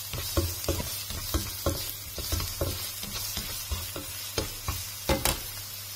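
Diced onion sizzling in hot oil in a nonstick pan while a plastic spatula stirs it, scraping and tapping the pan about three times a second, with the loudest knocks about five seconds in.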